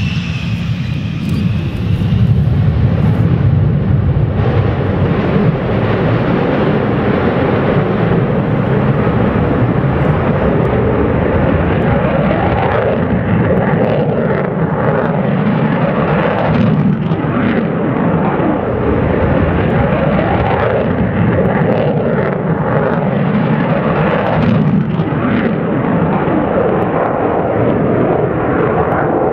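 Jet noise from a General Dynamics F-111's twin TF30 afterburning turbofans: a falling whine over the first two seconds, then a loud sustained roar with a slow wavering sweep in its tone as the jet passes and climbs away.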